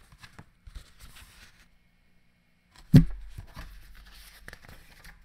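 Pages of a Little Golden Book picture book being turned and handled, paper rustling softly, with one sharp thump about three seconds in.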